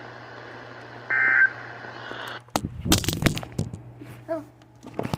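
A short electronic data burst from the radio, typical of an EAS end-of-message tone, about a second in over a steady radio hiss. The hiss cuts off sharply, and is followed by louder rustling and knocking of handling noise and a few scattered clicks.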